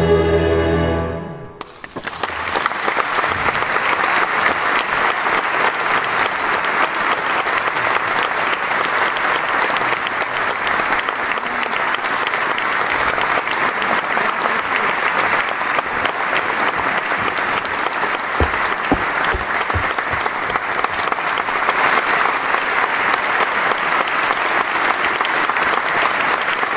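A women's choir's final held chord dies away in the first second and a half, followed by steady audience applause.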